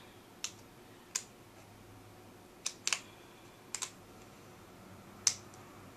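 Scattered sharp little plastic clicks and taps, about seven of them, a couple in quick pairs: MAC eyeshadow compacts being picked up and handled on a table.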